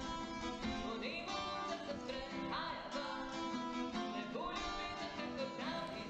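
Background music led by guitar.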